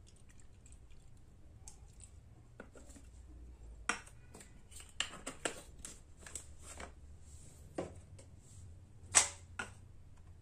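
A series of light knocks and clicks of camping cook gear handled on a tile floor: a plastic fuel bottle being capped and set down, and a tin-can spirit stove and its aluminium windshield being moved. The loudest knock comes about nine seconds in.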